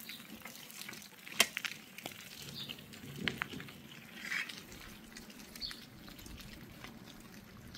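Light rain pattering with a steady hiss and scattered drips ticking, one sharper tick about a second and a half in.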